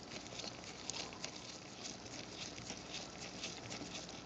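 Faint, irregular ticking and scratching of a tiny #00 Phillips screwdriver turning out the small screws that hold a compact camera's CCD sensor unit.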